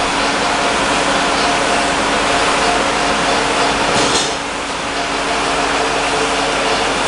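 Automatic bottle filling and capping line running: a steady, noisy machine sound with a low hum. A brief hiss about four seconds in.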